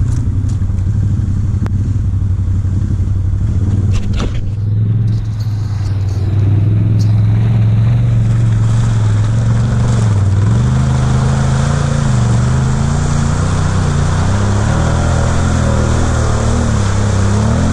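ATV engine running, then revving up and down repeatedly from about six seconds in, with a couple of sharp knocks about four seconds in.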